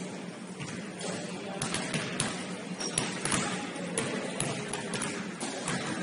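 Several basketballs bouncing on a hardwood gym floor at irregular intervals, over a steady low hum.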